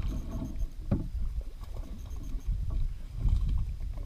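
Wind buffeting the microphone, with water splashing and lapping beside a kayak while a hooked fish is fought. There is a single sharp knock about a second in.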